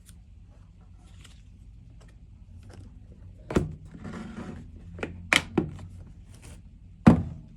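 Knife and packaging being handled on a hard surface: a few sharp knocks with a brief rustling scrape between them, over a steady low hum.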